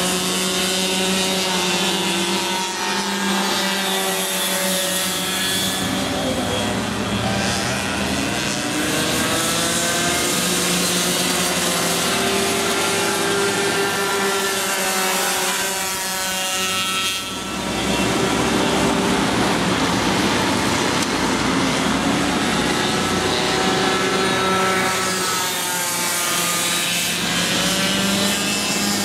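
Several racing go-kart engines running at speed, their pitch climbing and falling as the karts accelerate out of corners and back off into them, with several engine notes overlapping. The sound dips briefly a little past halfway, then one engine revs up again.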